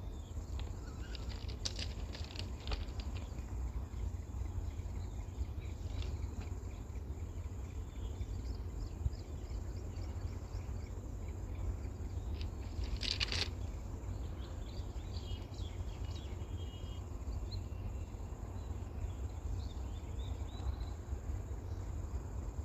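Birds chirping and insects calling over a steady low rumble, with one brief louder bird call about halfway through.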